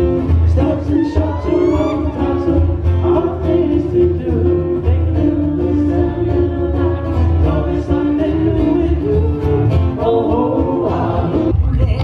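Live Hawaiian music: a voice singing held, melodic lines over strummed acoustic guitars, accompanying a hula dance.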